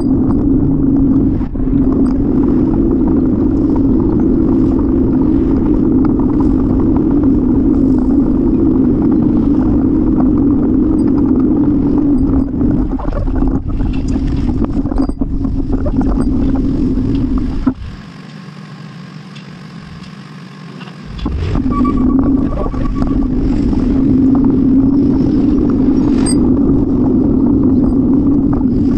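Steady rumble of wind and rolling noise on a bike-mounted camera during a ride. It falls much quieter for about three seconds a little past halfway, then comes back.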